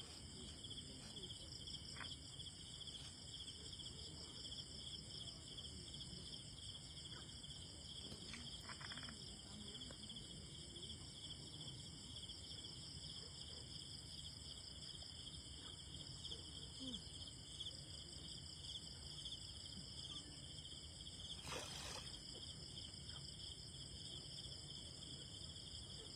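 Night insects chirring steadily in several high-pitched bands, a constant fine pulsing drone, with a low background rumble. A single sharp click about four seconds before the end.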